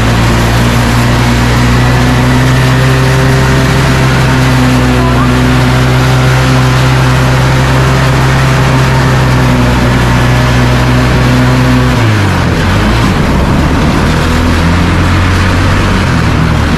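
Engine of a homemade car running loud and steady at one pitch; about twelve seconds in, its note drops and turns uneven.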